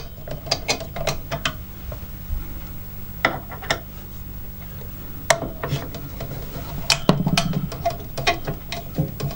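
Scattered clicks and light knocks of hands working on an AMD stock CPU cooler, unplugging its fan lead and setting a screwdriver to its mounting screws.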